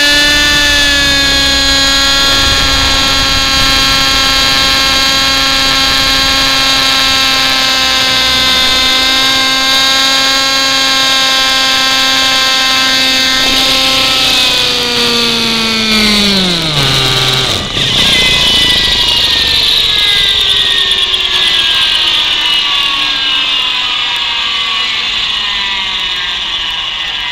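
Thunder Tiger Raptor 50 Titan nitro RC helicopter's engine and rotors, heard from a camera mounted on the helicopter. They run at a steady high pitch, then about halfway through the pitch drops steeply as the helicopter sets down and is throttled back. The rotors then wind down with a slowly falling whine that fades.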